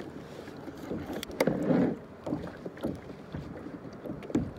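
Scattered light knocks and rustles of gear and the caught fish being handled against a plastic kayak, with wind on the microphone. A louder patch of handling comes about a second and a half in.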